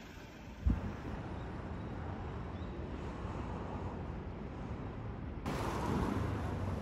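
Outdoor street ambience: a steady low rumble of traffic with wind buffeting the microphone. A brief thump comes just under a second in, and the sound changes suddenly and grows louder about five and a half seconds in.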